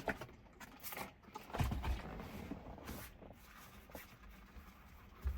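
Scattered handling noises: light clicks and a couple of low thumps, one about a second and a half in and one near the end.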